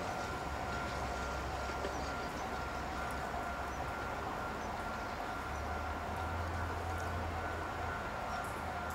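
Steady distant urban rumble with a constant thin whine, the low rumble swelling slightly about six seconds in; no train passes close by.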